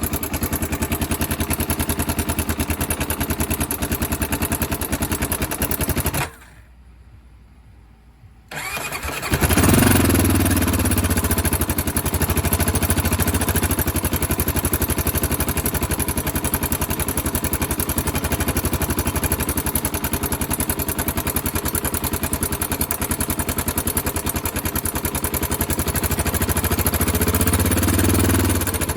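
Honda XR400M's single-cylinder four-stroke engine running, with the abnormal noise from around the cylinder head that is being tracked down. The engine falls away for about two seconds partway through, starts again with a rev, settles back to idle, and is revved briefly near the end.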